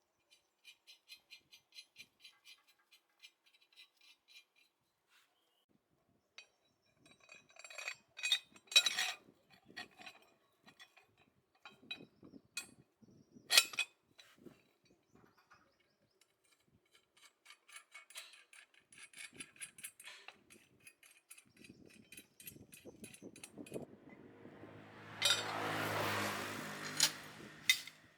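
Metal parts and hand tools clinking and tapping during workshop work. A quick run of light ticks comes in the first few seconds, two sharp knocks follow in the middle, and a short, louder whirring noise comes near the end.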